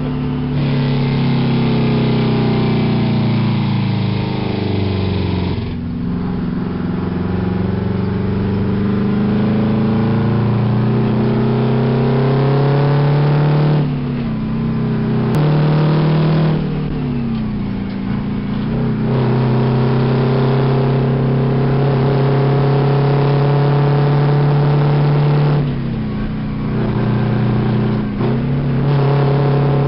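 A 1967 Kenworth truck's Detroit Diesel 318 two-stroke engine, heard from inside the cab as it pulls through the gears. Engine speed falls over the first few seconds, then climbs, dropping back at each gear change several times.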